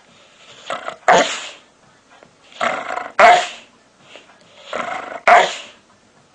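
A dog making its odd attention-seeking noises: three bouts about two seconds apart, each a softer lead-in rising into a short, loud bark-like burst.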